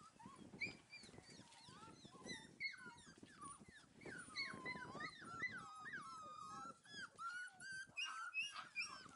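Five-week-old heeler puppies whimpering and whining: a string of short, high, wavering whines that come thicker and faster from about halfway through.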